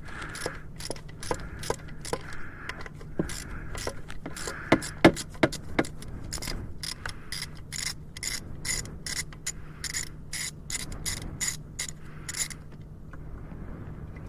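Hand ratchet wrench clicking as a bolt is turned, about two to three clicks a second, stopping near the end.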